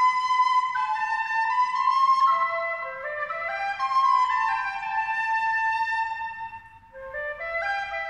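Slow instrumental music of several held, overlapping notes moving step by step, sinking lower about three seconds in. It fades briefly just before seven seconds, then a run of notes steps upward.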